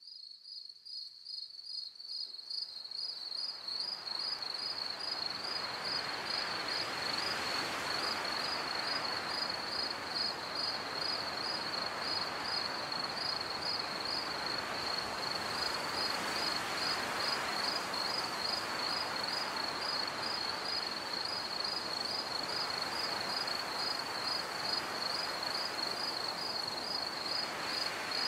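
Crickets chirping steadily, a few chirps a second, over a soft rushing noise that slowly swells and eases. The whole fades in over the first few seconds.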